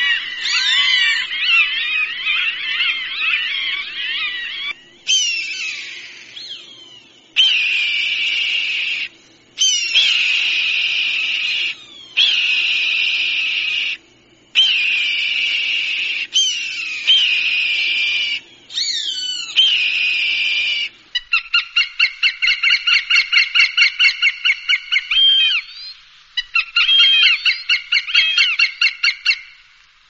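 Recorded hawk calls played to scare off other birds. First comes a string of drawn-out screams, each about two seconds long with brief breaks between them. About two-thirds of the way in, they give way to a fast chattering series of sharp repeated notes, about four or five a second.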